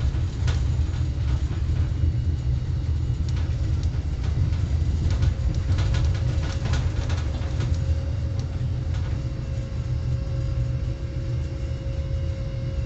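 Steady low rumble of a moving road vehicle heard from inside, with scattered clicks and rattles and a steady hum that comes in about five seconds in.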